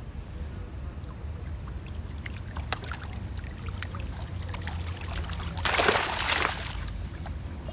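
Water sloshing and dripping around a mesh fish keep net in the lake, with scattered small drips, then one short loud splash about three-quarters of the way through as the net holding the fish is jostled in the water.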